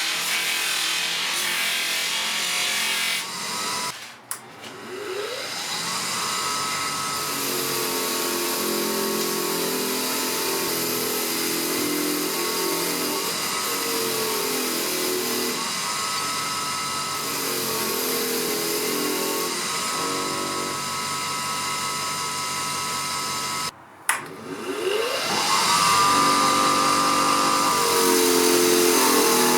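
A salvaged washing-machine motor running as a power tool with a steady whine. It cuts out abruptly twice, and each time the whine rises as the motor spins back up to speed, with an uneven lower rumble in between.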